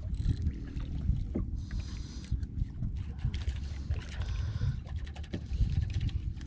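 Small fishing boat on the water: a steady low rumble with scattered light knocks, and two brief hissing bursts about one and a half and four seconds in.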